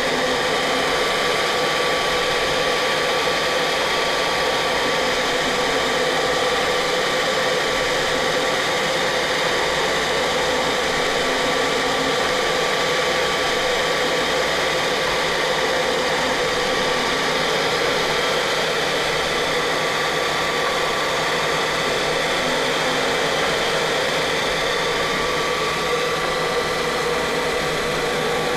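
CNC machine running while its laser diode engraves wood: a steady whir of motor and fan noise with several constant whining tones.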